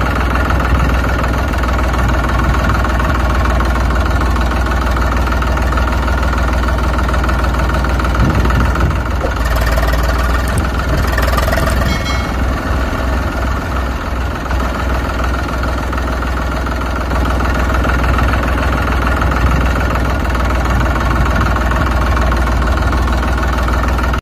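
Engine idling steadily, a loud, continuous low running sound.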